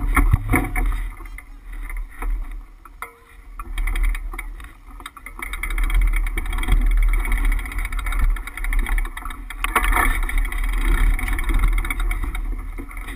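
Low wind rumble on the microphone and rattling from a bicycle rolling slowly over asphalt, with many small clicks and knocks; the rumble swells and fades, louder from about six seconds in.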